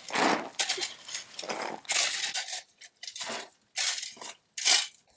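Metal shovel blade scraping and crunching into gravelly soil: a string of about nine short, irregular digging strokes.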